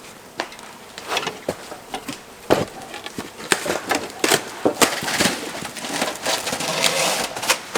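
A run of irregular knocks, clicks and rustles from handling gear, with denser rustling about five seconds in that stops near the end.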